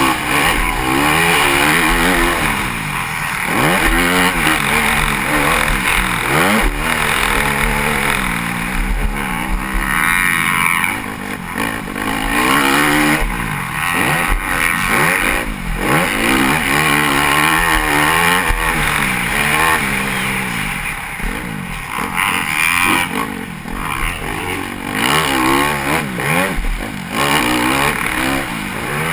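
Dirt bike engine heard on board during a motocross race, revving up and dropping back over and over as the rider accelerates, shifts and rolls off around the track, over a steady rush of wind noise.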